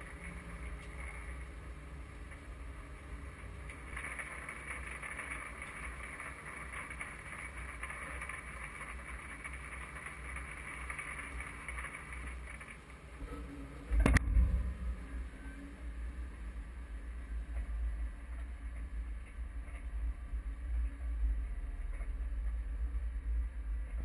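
Pea viner's machinery rumbling steadily, with the hiss of shelled peas pouring from its elevator into a trailer for the first half. A single loud knock comes a little past halfway; the pouring hiss then stops and the low engine rumble carries on.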